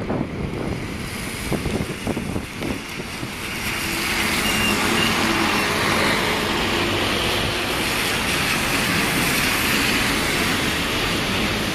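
City buses driving past close by on a wet road: engines running and tyres hissing through the water, the noise growing louder about four seconds in as a single-deck bus comes close and passes.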